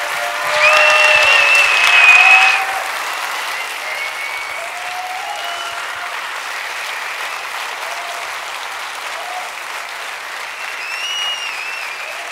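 Large audience applauding and cheering, loudest in the first few seconds, when a high, shrill call is held for about two seconds above the clapping.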